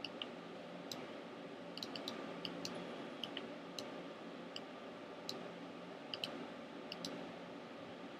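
Computer mouse clicking: about a dozen light, irregularly spaced clicks over a faint steady hum.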